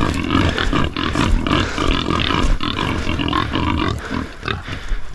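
A big mob of feral pigs calling all at once, many overlapping grunts and squeals forming a steady din; it thins out about four seconds in.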